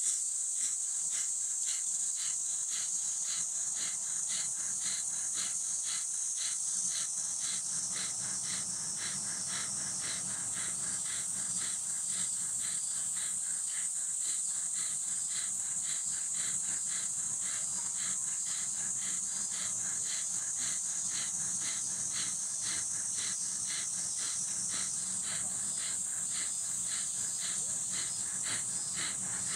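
Quick, evenly paced forceful breaths through the nose in a pranayama exercise, several a second and steady throughout. Behind them a steady high-pitched drone of cicadas in the trees.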